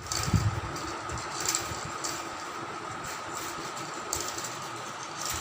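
Steady mechanical hum with a few faint short clicks over it.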